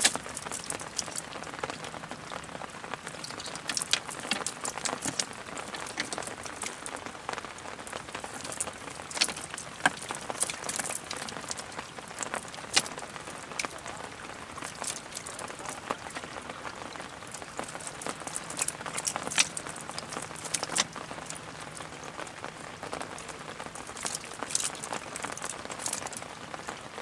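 Steady patter of water drops and small splashes, many irregular sharp ticks over a hiss, like rain falling on a wet surface.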